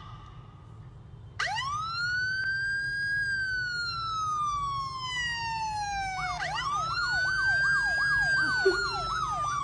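Electronic siren wailing: it rises sharply about a second and a half in, falls slowly, rises again past the middle, and then a rapid warble runs over the slow wail through the second half.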